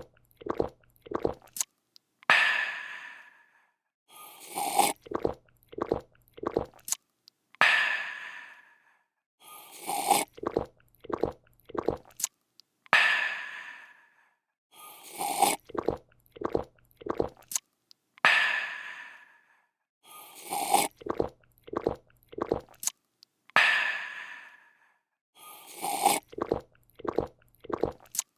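A person slurps a drink, swallows it in about four quick gulps, then lets out a long, satisfied 'aah' that fades away. The same sequence repeats about every five seconds.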